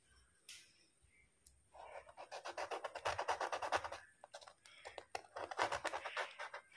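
A kitchen knife sawing through the crisp, pan-toasted chapati crust of a parda biryani. It makes quick rasping strokes in two bouts, with a short pause about four seconds in.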